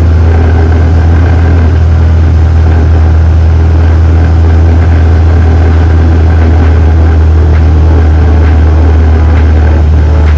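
Light aircraft's piston engine and propeller running steadily, a loud, even low hum.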